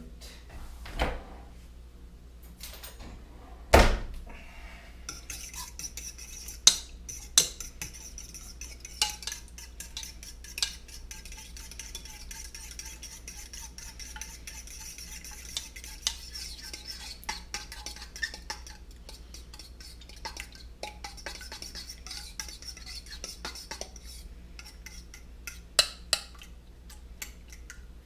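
Eggs beaten in a bowl with a utensil: rapid, steady clicking of the utensil against the bowl for about twenty seconds. Two louder knocks come before it, one near the start and one about four seconds in.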